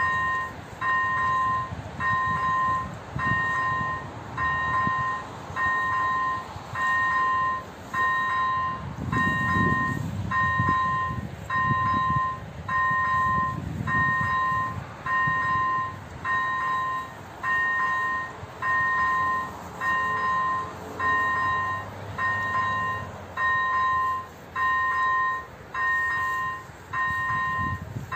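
Electronic level-crossing bell (AŽD type 01) on an activated railway crossing, dinging steadily about once a second with a short two-tone chime, the warning that a train is approaching. A low rumble rises and falls around ten seconds in.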